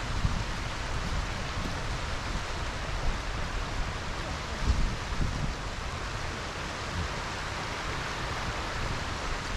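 Steady rushing of a shallow mountain river flowing over stones, with an uneven low rumble underneath.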